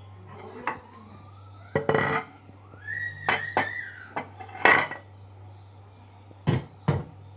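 Kitchen dishes and utensils clattering as vegetables are put in and mixed: a run of sharp clinks and knocks, some ringing briefly, with a squeaky scrape that rises in pitch, over a steady low hum.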